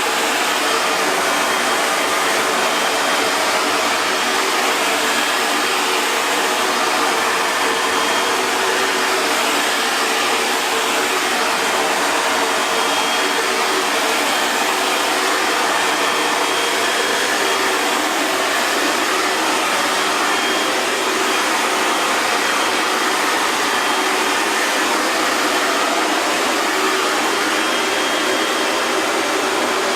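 Hair dryer running continuously: a steady rush of blown air with a faint motor hum beneath it, unchanging throughout.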